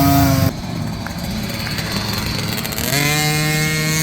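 Small dirt bike engines revving up and down as the bikes race. After a sudden cut there is a rough rumble, and about three seconds in, one engine holds a steady high buzz.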